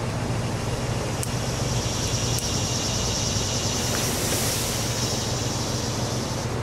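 A line of homemade black powder burning off in a brief hiss about four seconds in, after a few faint clicks, over a steady low mechanical hum.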